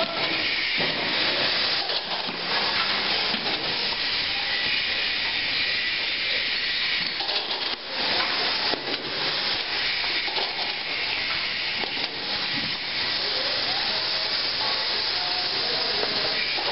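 Packaging-line machinery running: a steady hiss, with scattered clicks and knocks.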